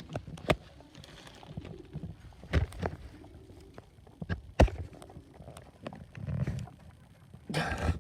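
Irregular knocks and thuds, several of them sharp, with a short burst of rustling near the end, from handling around a rabbit hutch.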